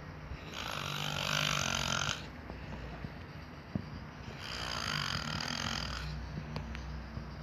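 A person snoring: two long snores about four seconds apart, each lasting about a second and a half.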